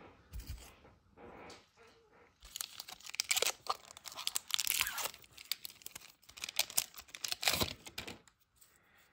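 Silver foil wrapper of a 1992-93 Upper Deck hockey card pack being torn open down the side and crinkled by hand. A run of crackly tearing starts about two and a half seconds in and goes on until about eight seconds in.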